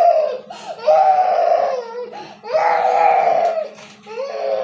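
Young child crying in a run of long, loud wails, four cries with short breaks between them.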